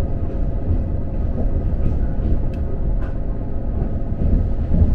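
Toyama Chiho Railway electric train running at low speed: a steady low rumble with a faint steady hum above it.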